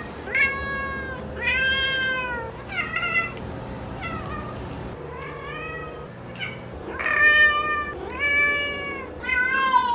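Brown tabby-and-white domestic cat meowing over and over: a string of about eight long, drawn-out meows, each rising and then falling in pitch.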